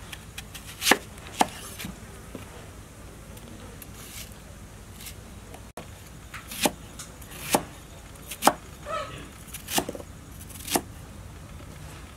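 A large kitchen knife cutting through a peeled onion and knocking on a wooden chopping board, in slow separate strokes. There are two sharp knocks about a second in, a pause, then five more about a second apart in the second half.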